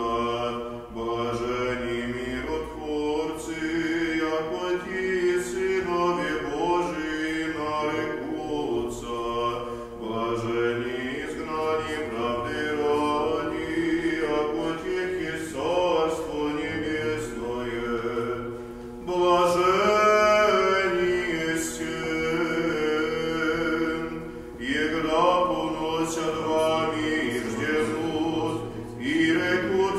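Male voices singing Byzantine liturgical chant (monody): a slow, continuous melody with short breaths between phrases.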